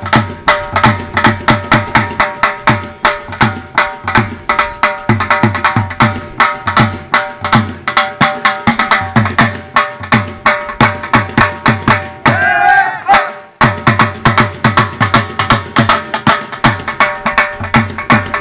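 Bhangra music driven by fast, steady dhol drumming over a held melodic drone. About twelve seconds in, the drumming breaks for roughly a second while a brief, wavering vocal call sounds, then the beat comes back in.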